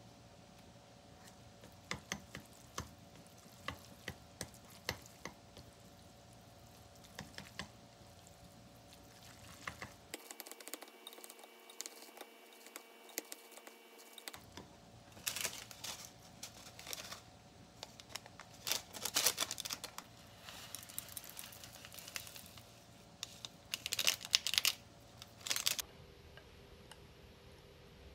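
Chopsticks clicking against a ceramic bowl and squelching through sauce-coated chewy noodles as they are mixed, in irregular bunches of short clicks that grow busier in the second half.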